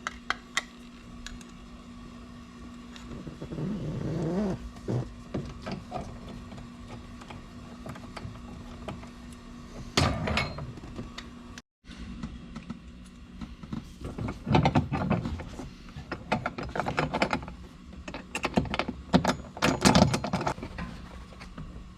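Scattered clicks, knocks and rattles of hand tools and plastic switch-panel parts being handled, as the mounting bracket is taken off the switch mount. The knocks come in denser clusters in the second half, over a faint steady hum.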